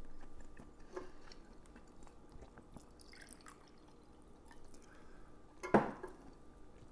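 Quiet eating sounds: faint chewing and small scattered clicks, with one sharp click or knock just before six seconds in.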